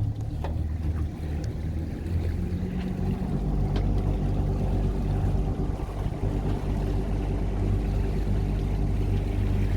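A motor vehicle's engine running at a steady speed: a continuous low drone with a few steady tones in it.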